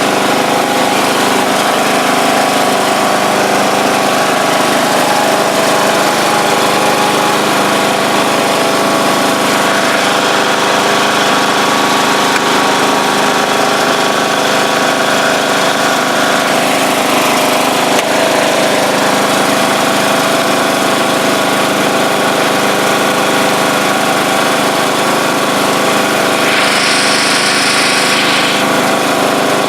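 John Deere LA125 riding lawn tractor's replacement single-cylinder engine running steadily as the tractor drives, its sheared flywheel key now fixed so it runs properly. A brief hiss is heard near the end.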